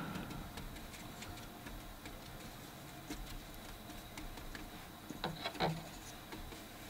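Faint light taps and scrubbing of a wide flat hake brush dabbing and mixing watercolour paint on a plastic palette, with a short cluster of louder ticks about five seconds in.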